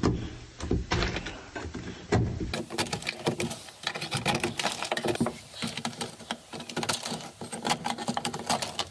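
Scraper chipping and scraping dry-ice-frozen sound-deadening mat off a car's sheet-metal floor pan, among loose dry ice pellets: a rapid, irregular run of clicks and scrapes. The freezing makes the deadening brittle so it cracks off the metal.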